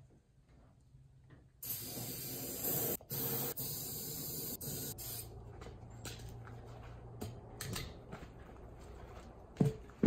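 Aerosol can of starting fluid hissing in long sprays, with a few short breaks, into a flat tubeless lawn tractor tire to blow the bead onto the rim. Near the end a sudden thump as the fumes ignite.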